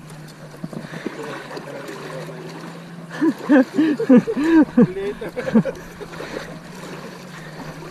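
Shallow seawater sloshing and trickling around wading legs, with a person's voice calling out in short rising-and-falling sounds from about three seconds in until nearly six seconds.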